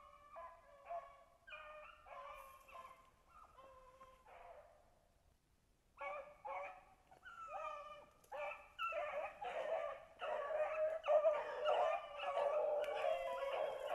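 A pack of beagles baying on a rabbit's trail. Separate calls at first fade out about four seconds in, then many voices overlap and get louder from about halfway through.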